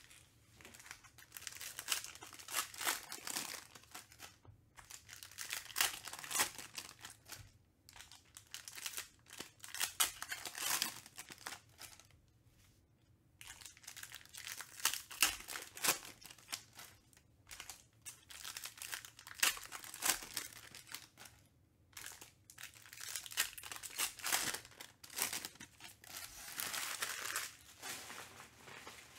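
Trading-card pack wrappers from a box of 2021 Panini Contenders Baseball being torn open and crumpled by hand, in about six bursts of crinkling with short pauses between.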